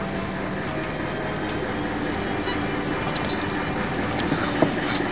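Steady running noise of a longline fishing boat's engine and line hauler as the longline is hauled aboard, with a few light clicks in the second half.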